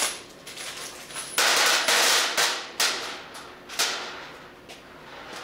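A clear plastic hardware bag being crinkled and opened by hand: several rustling bursts, the longest from about one and a half to two and a half seconds in, with a few sharp clicks.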